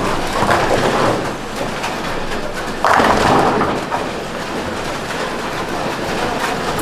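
Bowling alley noise: a ball rumbling down the lane, with a sudden loud clatter of pins being struck about three seconds in, which fades over about a second.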